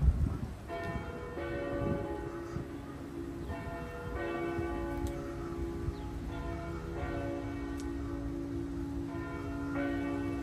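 Church bells ringing: several bells struck in turn, roughly in pairs every few seconds, with a steady hum hanging on between the strokes. A short low thump comes just at the start.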